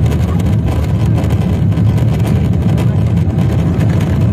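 Steady low rumble inside the cabin of a jet airliner rolling on the ground, from its engines and its movement.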